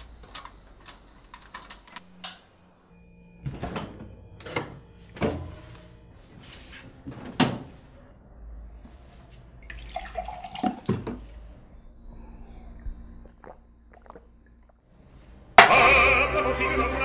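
Glass tumblers and a glass-fronted cupboard being handled: a string of knocks and clinks, some of which ring briefly. Water is then poured and drunk. About fifteen seconds in, loud opera music cuts in suddenly.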